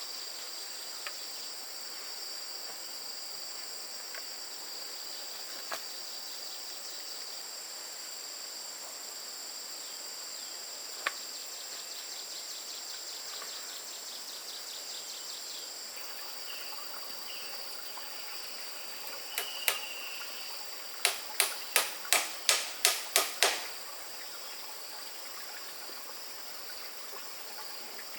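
A steady, high-pitched chorus of insects droning in the forest. Near the end comes a quick run of about eight sharp, loud clicks, roughly three a second.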